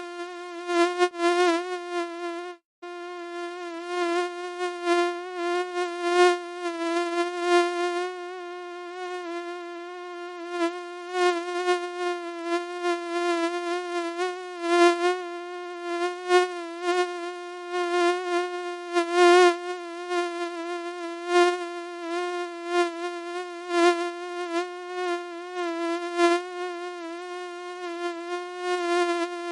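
Mosquito buzzing: a steady high whine with many overtones that swells and fades repeatedly, as if the insect is flying close past the ear and away. It cuts out for a split second about two and a half seconds in.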